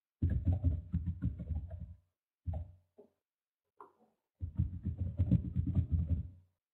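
Rapid tapping and rustling close to a microphone, in two stretches of about two seconds each with a short burst between them.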